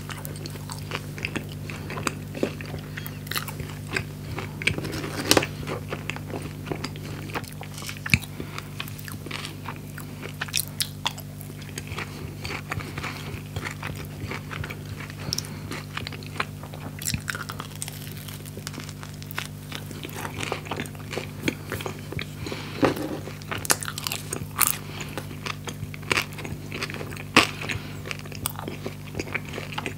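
Close-miked biting and chewing of a toasted skepasti pita sandwich filled with fried chicken, with sharp crunches and crackles scattered throughout. A steady low hum runs underneath.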